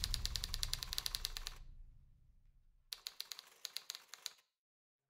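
Typewriter keys clacking in quick, even runs, about ten strikes a second, as a typing sound effect for text appearing on screen. One run stops about a second and a half in; a second, quieter run starts near three seconds and stops about a second and a half later, followed by silence.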